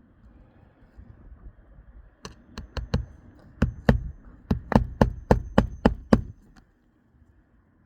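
Hammer driving roofing nails into asphalt shingles: about a dozen sharp strikes in quick runs, a few a second, stopping a little after the middle.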